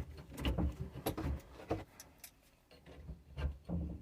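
Irregular clicks, knocks and low thumps of metal work under a kitchen sink: faucet supply lines being tightened onto the shut-off valves with a wrench.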